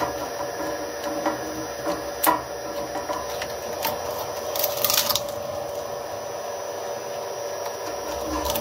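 Twin-shaft shredder running with a steady hum while a wooden table tennis paddle is pushed down onto its cutters, giving a few sharp knocks, the loudest about two seconds in, and a brief scraping rasp about five seconds in.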